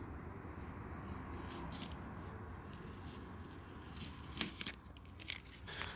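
Transfer tape being peeled slowly and diagonally off a freshly applied vinyl decal, a faint steady tearing sound, with a few sharp crackles as it comes free after about four seconds.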